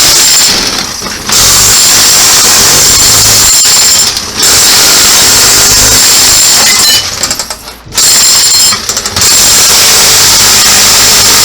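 Electric demolition hammer with a carbide chisel bit, chipping ceramic tiles off a bathroom wall. It runs in long, loud bursts with short pauses about half a second in, near four seconds, around seven to eight seconds and briefly near nine seconds.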